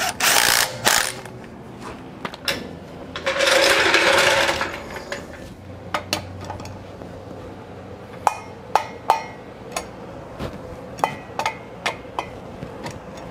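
A cordless power driver spins lug nuts down in two short runs. Then a click-type torque wrench clicks sharply a dozen or so times as the lug nuts are torqued.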